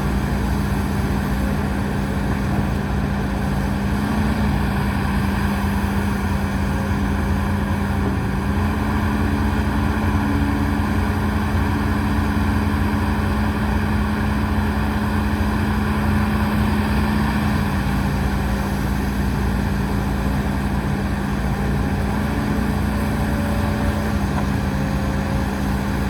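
Heavy diesel engine of earthmoving machinery running steadily, its pitch shifting slightly every few seconds.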